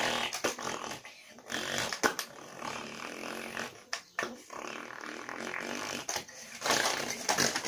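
A child imitating a car engine with his mouth, a buzzing lip-trill 'brrr' in several spurts of a second or two, the loudest near the end.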